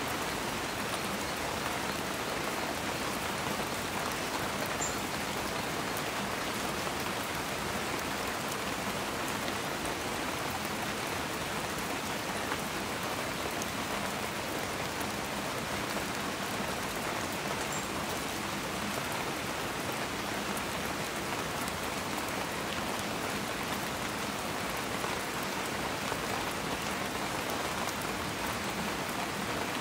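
Steady rushing of a river flowing over rocks, an even hiss of water.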